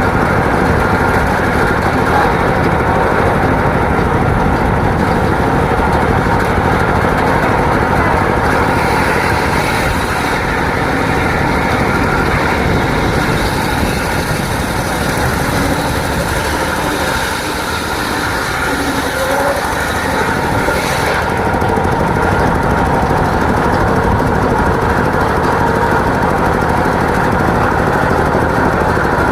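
Homemade engine-driven circular sawmill running steadily while sawing timber, its engine chugging with a dip in level about two-thirds of the way through.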